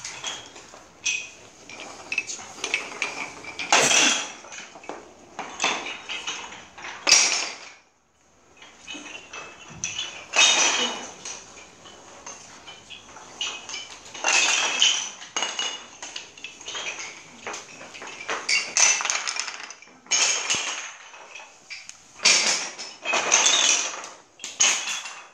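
Wooden yut sticks thrown again and again onto a wooden parquet floor, clattering and knocking in quick clusters as they land and tumble.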